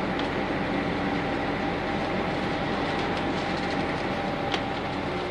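Interior running sound of a Nissan Diesel UA city bus with a PU6 compressed-natural-gas engine, driving steadily along the road: an even engine and road drone with a faint steady whine, heard inside the cabin.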